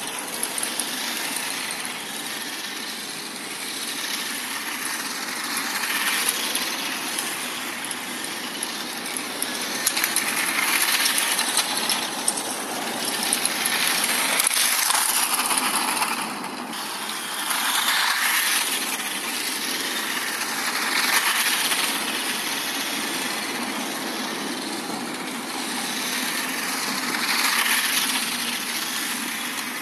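Radio-controlled toy tow truck's hard plastic wheels and gearing rolling over rough tarmac: a continuous gritty rattle. It grows louder as the truck passes close and fades as it drives away, several times over.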